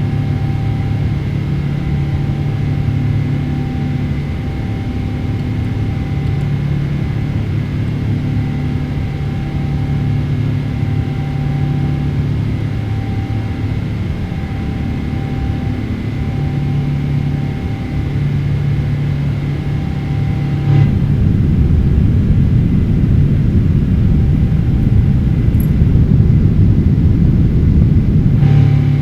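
Cabin drone of a Boeing 777-300ER's GE90 engines in the climb after take-off: a steady low hum with a few held tones that swell and fade in a slow beat. About twenty seconds in, a louder, rougher rumble takes over for about eight seconds.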